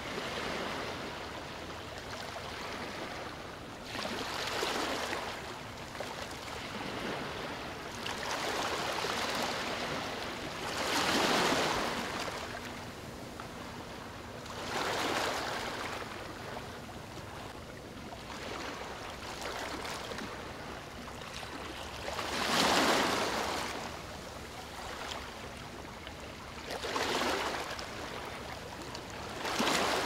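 Ocean surf washing onto a beach, a steady rush of water with waves that swell and fade every few seconds; the biggest surges come about a third and three-quarters of the way through.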